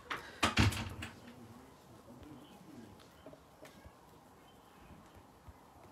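Phone being handled on a livestream: a few bumps and rustles against the microphone in the first second, then quiet room tone with a few faint ticks.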